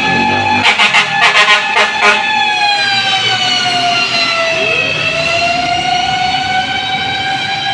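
Fire truck siren wailing, its pitch slowly falling and then rising again, with a second siren winding up about halfway through. A quick run of short horn blasts comes about a second in.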